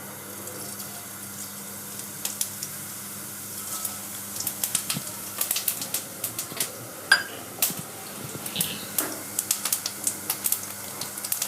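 Whole cumin seeds crackling in hot mustard oil: irregular sharp pops that begin about two seconds in and come more often from about four seconds, the seeds spluttering as they fry.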